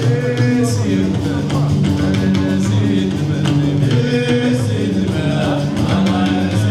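Gnawa music: a guembri bass lute plays a deep, repeating plucked bass line under male singing, with the steady clack of qraqeb metal castanets marking the beat.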